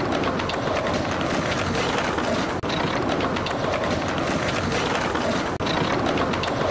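Street-skating sounds from many clips layered together: skateboard wheels rolling on concrete in a dense steady rumble, thick with board clacks and pops. The noise dips briefly twice, about three seconds apart.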